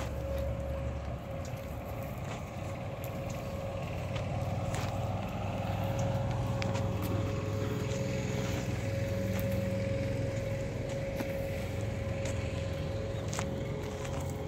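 A motor running steadily, a low hum with a steady higher whine, with a few faint clicks.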